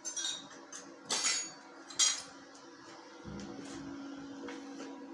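Metal clanking: three sharp metallic knocks and clinks in the first two seconds as metal tools or parts are handled. About three seconds in, a steady low machine hum comes up.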